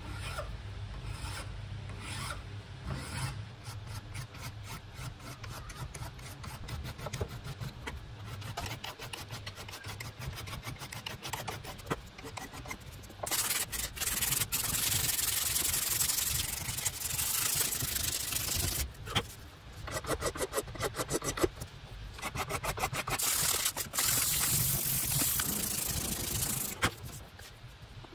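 A hand file rasping across a wooden kukri handle in quick, repeated strokes. About halfway through it gives way to louder, longer hissing strokes of a strip of abrasive paper pulled back and forth around the handle, shoe-shine style. The sanding stops briefly a couple of times and ends near the close.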